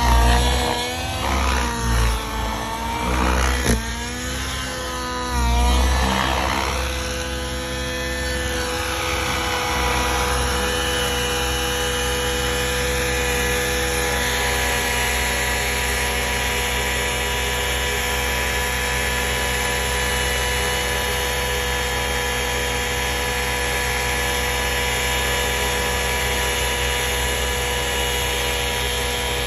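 Nitro engine and rotor of a 700-size RC helicopter running during engine break-in. For the first several seconds its pitch swings up and down as the helicopter manoeuvres; then it settles into a steady, even tone.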